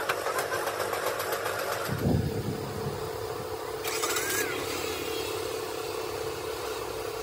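An engine running at idle with a rapid, even ticking. A louder low rumble swells briefly about two seconds in, and a short hiss follows a couple of seconds later.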